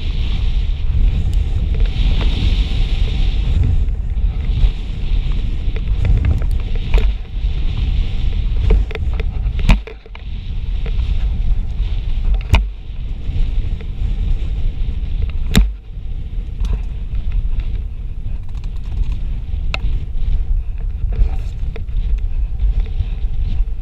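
Mountain bike descending a gravel and dirt trail at speed: wind buffeting the camera microphone over the crunch of tyres on gravel and the rattle of the bike. A few sharp clacks from the bike stand out, each followed by a brief lull.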